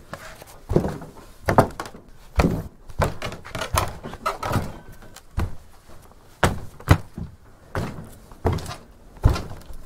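Footsteps on wooden attic floorboards: slow, steady steps about one every second, each a dull thud with a knock, and a short creak from the boards about halfway through.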